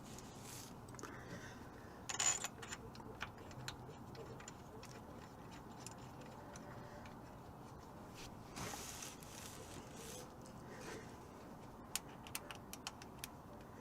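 Faint clinks and taps of metal engine parts and hand tools being handled, with a louder clatter about two seconds in and a quick run of small ticks near the end.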